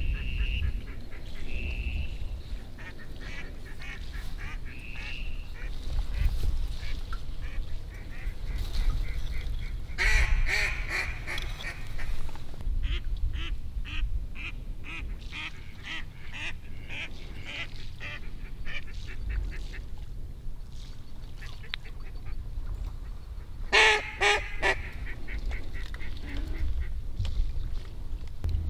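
Mallard-style quacking: runs of repeated quacks and quick chatter, loudest in a burst about ten seconds in and again around 24 seconds, over a low rumble of wind on the microphone.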